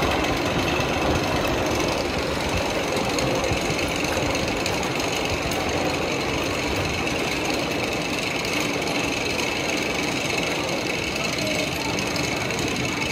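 Roller-coaster station machinery running with a steady, rapid mechanical rattle and a high steady whine.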